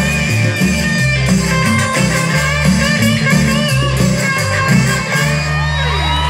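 Live cumbia band playing through a PA: a busy bass line under a plucked-string melody, settling onto a long held low note near the end.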